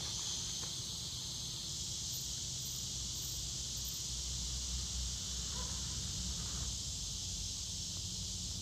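Steady, high-pitched chorus of insects such as crickets, with a low rumble beneath.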